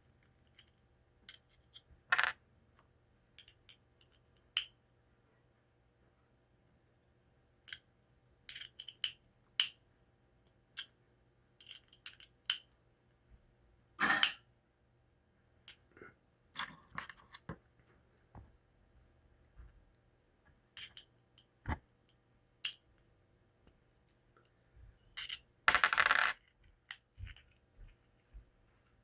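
Scattered light metallic clicks and clinks of a small screwdriver taking the screws out of a switchblade's handle, with a short clatter near the end.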